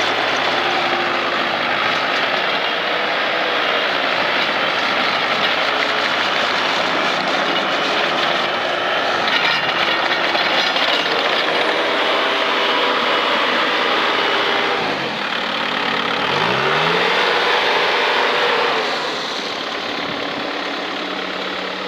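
2007 Bobcat T190 skid steer's diesel engine running steadily. About fifteen seconds in, the engine speed dips sharply and then climbs back up. Near the end it settles a little quieter.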